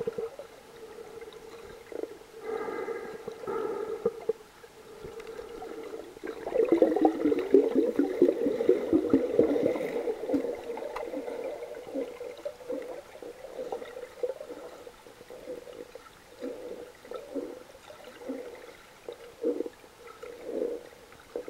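Muffled underwater sound of a snorkeler breathing through a snorkel, with water gurgling in the tube. Short humming tones come early on. From about six to ten seconds in there is a louder, longer stretch of gurgling, followed by scattered short gurgles.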